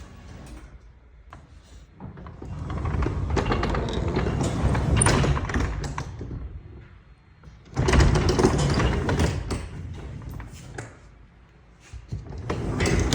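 Garage door running on its tracks under the newly installed opener and spring: a rumble with rattling clicks, in three stretches with short pauses between.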